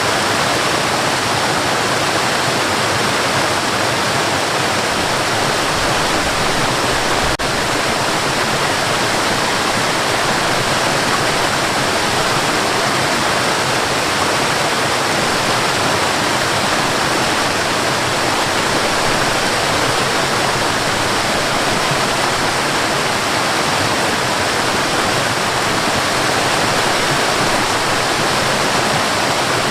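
Waterfall: water pouring and splashing in a steady, loud, unbroken rush.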